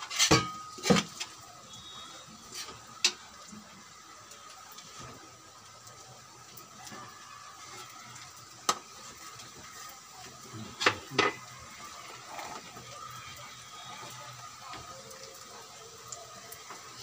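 Metal spatula stirring in an aluminium wok, with sharp clanks of metal on metal: several in the first second, one around three seconds, one near nine seconds and a quick pair around eleven seconds. A faint steady hiss runs underneath.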